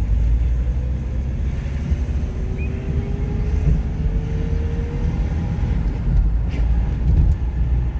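Car engine and road noise heard inside the cabin while driving in second gear: a deep, steady rumble, with a faint whine that rises slowly in pitch for a few seconds in the middle.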